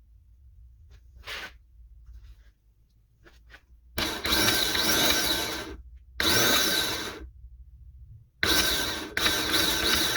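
A Honda Civic starter motor is energized three times in a test, spinning up with a high, steady whine for one to two seconds each time. A few faint clicks come before the first run.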